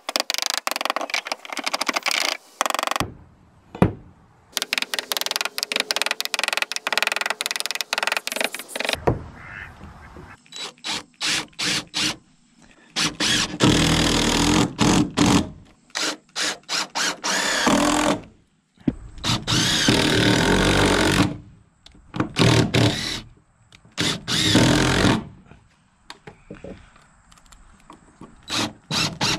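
DeWalt cordless drill/driver driving screws into wood, running in repeated bursts of a few seconds each with short pauses between.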